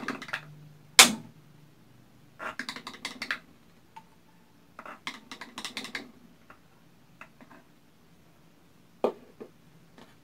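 Runs of light, quick clicks and taps from a stick knocking against the mouth of a plastic bottle and a small food-colouring bottle while red colouring is added. There is one sharp louder click about a second in and a single knock near the end.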